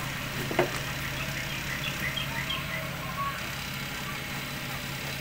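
Cotton candy machine running: a steady motor hum, with a single sharp knock about half a second in and a few faint high chirps over the next two seconds.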